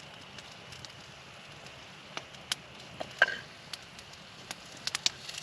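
Wood campfire crackling with scattered sharp pops, mostly in the second half, over a faint steady hiss of food sizzling in a skillet.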